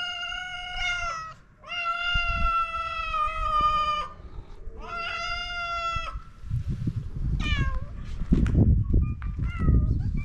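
Stray cat meowing: three long, drawn-out meows in the first six seconds, then several short ones. A low rustling noise runs under the later meows.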